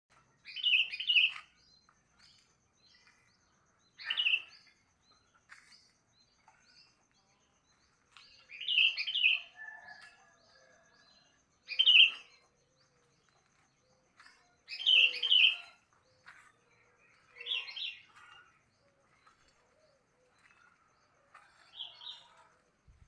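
Sooty-headed bulbul (kutilang) singing: about seven short phrases of a few quick notes each, repeated every two to four seconds, with faint chirps in between.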